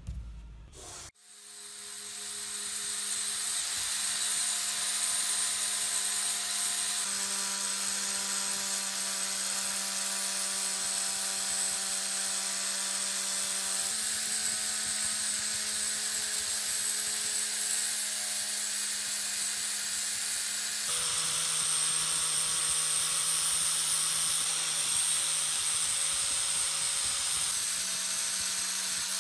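Electric power tool fitted with a wool felt polishing pad, running steadily while buffing the steel of a pair of antique scissors. The motor spins up about a second in, and its steady hum shifts slightly in pitch several times.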